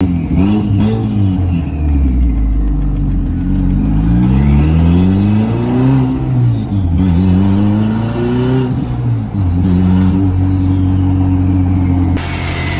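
Turbocharged Ford Focus ST engine with a Precision 6266 turbo and a hood-dump exhaust, heard from inside the cabin, accelerating hard through the gears. The exhaust note climbs in long pulls and drops at upshifts about six and nine seconds in, with a high turbo whistle rising alongside and falling away when the throttle lifts. Near the end it settles into a steady cruise.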